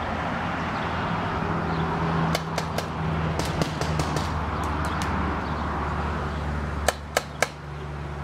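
Paintball markers firing in scattered sharp pops: a quick run of three about two and a half seconds in, several more through the middle, and three louder shots near the end, over a steady background rush.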